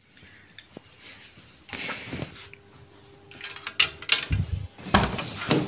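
Irregular knocks, rustling and clatter of a person moving about a small room while handling the camera, getting louder and busier in the second half.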